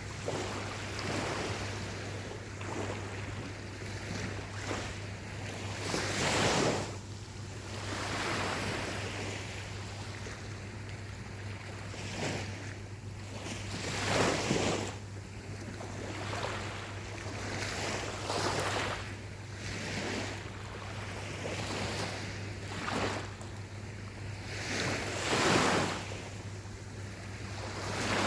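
Gentle ocean waves breaking and washing up on a beach: a continuous wash of surf that swells and fades every few seconds, with bigger breakers about six, fourteen and twenty-five seconds in.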